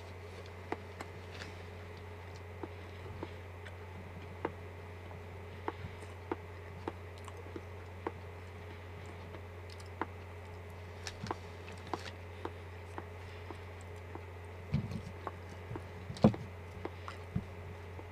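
Eating sounds close to the microphone: scattered small clicks and taps of chopsticks against a ceramic bowl and chewing of a soft cooked potato, with a louder cluster of taps near the end. A steady low hum runs underneath.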